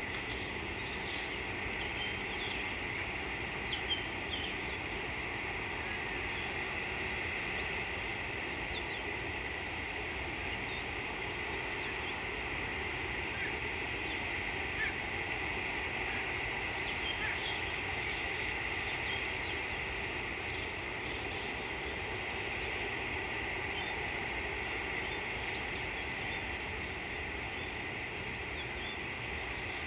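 A continuous insect chorus: two steady, shrill high-pitched drones over a low background hiss. Short bird chirps and calls are scattered through it, a few standing out briefly about 4, 15 and 17 seconds in.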